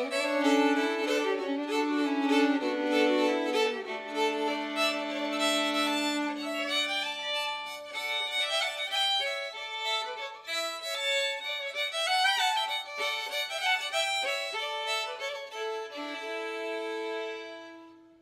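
Fiddle music, a folk fiddle tune, fading out near the end.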